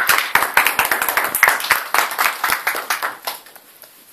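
A small audience clapping, irregular and fairly loud, tapering off about three and a half seconds in.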